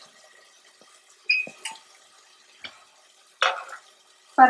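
Aluminium pressure cookers and lids knocking and clinking against each other and the gas stove grate as they are handled. There are a few separate metal knocks, one about a second in with a brief ringing, and a louder clatter near the end.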